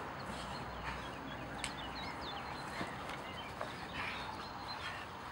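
Outdoor ambience with small birds chirping, soft footsteps of a dog and a person moving over grass, and one sharp click about one and a half seconds in.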